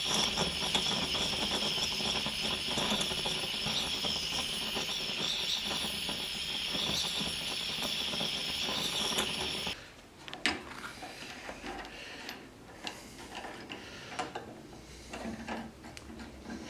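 Handheld propane torch on a small gas bottle burning with a steady hiss as it heats a small steel spur gear. The hiss cuts off suddenly near the ten-second mark. Light metallic clicks and knocks follow as a gear puller clamped in a bench vise is worked.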